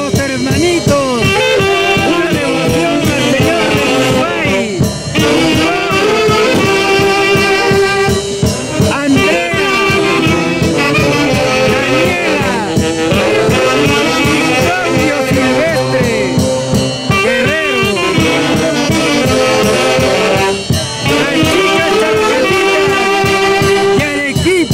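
A folk orchestra of the central Peruvian highlands plays continuously, its wind instruments carrying a melody.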